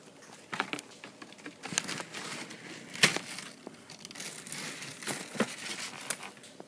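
Irregular rustling and crinkling handling noise with scattered light clicks, loudest in a sharp click about three seconds in.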